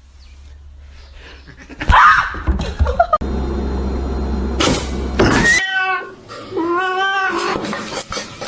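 A cat meowing twice near the end: a short call falling in pitch, then a longer wavering meow.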